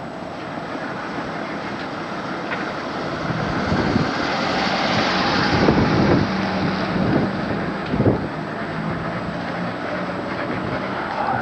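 Wind noise on the microphone mixed with a passing car, swelling to its loudest about six seconds in, with a low engine hum in the middle part.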